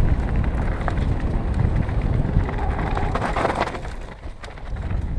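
Wind buffeting a helmet-mounted action camera's microphone as a mountain bike rolls down a gravel road, with rumble from the tyres; it dips briefly about four seconds in.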